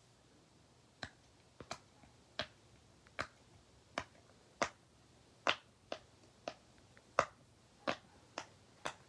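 Bubbles of big silicone pop-it fidget toys being pressed one at a time, each giving a short sharp pop. The pops start about a second in and come about one to two a second, unevenly spaced.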